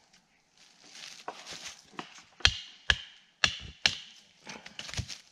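Small hatchet chopping into a resin-soaked pine stump (fat lighter): four sharp strikes about half a second apart in the middle, with softer scuffling and rustling before and after.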